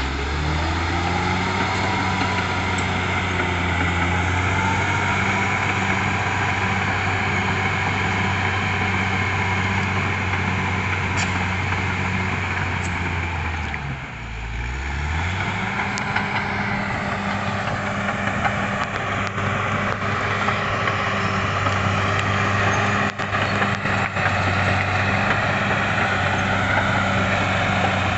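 Caterpillar D6R XL bulldozer's diesel engine running steadily. Its speed drops briefly about halfway through, then picks back up.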